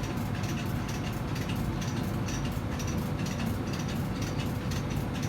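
Crane machinery running steadily while it hoists a load: a low hum with a thin steady whine and faint irregular ticking.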